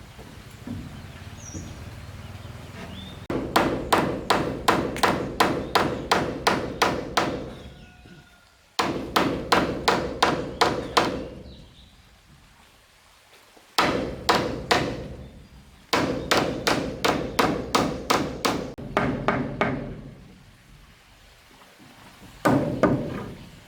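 Quick, evenly spaced blows on wood, about three or four a second, in runs of a few seconds with short pauses between; the last run near the end is brief.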